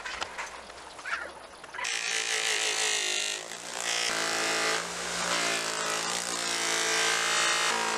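Quieter scratching and clicks, then about two seconds in a power tool's electric motor starts abruptly and runs with a steady whine. Its pitch and loudness dip briefly about a second and a half later, then hold steady.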